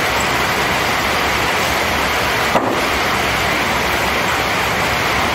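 Loud, steady hiss of a heavy rain downpour. A single short click cuts through it about halfway through.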